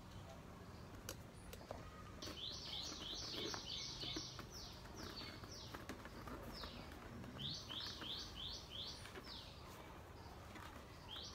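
A bird calling in quick runs of short, high, downward-slurred notes: a run of about eight notes a couple of seconds in, a few single notes, then a run of about six, with one more near the end.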